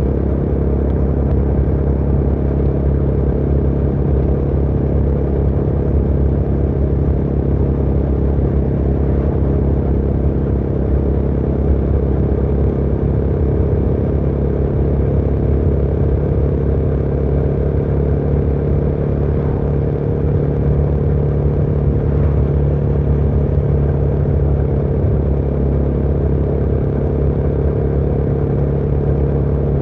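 Motorcycle engine running at a steady speed, its pitch holding level with no revving or gear changes.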